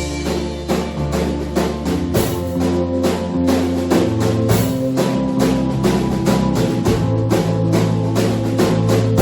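Church band playing instrumental music: a drum kit keeps a steady beat, several hits a second, over held bass notes and guitar.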